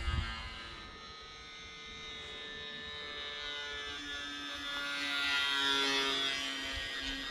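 Small 1304 3000kv brushless electric motor and propeller of a lightweight RC slow-flyer plane buzzing in flight. Its pitch drifts slowly, and it grows louder about five seconds in.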